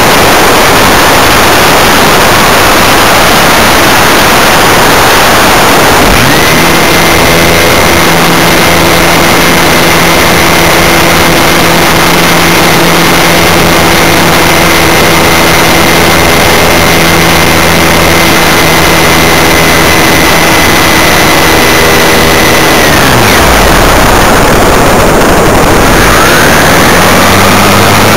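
Model aircraft's motor and propeller heard loud and close from the plane's onboard camera. A rushing noise comes first. About six seconds in it gives way to a steady engine note with a thin high whine, which falls away about 23 seconds in and then climbs again in pitch near the end.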